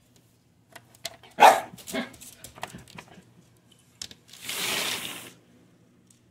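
A dog giving a couple of short barks about a second and a half in, with scattered clicks around them, then a breathy hiss lasting about a second near the end.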